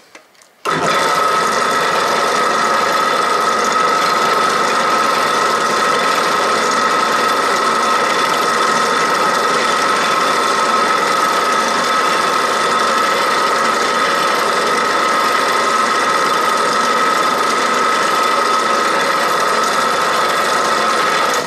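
Benchtop drill press switched on about half a second in and running steadily with a high, even whine, its 4 mm bit drilling through a small plastic PET preform held in a vise.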